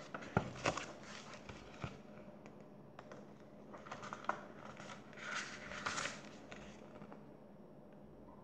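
Paper pages of a paperback picture book rustling as it is handled and its pages are turned, with a few sharp taps. It comes in two spells: one in the first two seconds, and a longer one about four to six seconds in.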